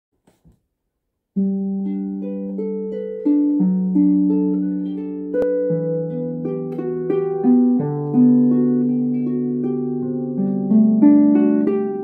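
Solo pedal harp: plucked notes and chords that ring on and overlap, with a slow melody over lower notes. The playing starts about a second and a half in, after a couple of faint clicks.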